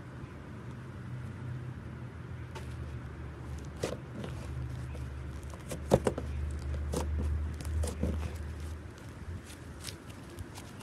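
Hands squishing and poking slime, giving scattered soft clicks and pops, the loudest about six seconds in, over a low steady rumble.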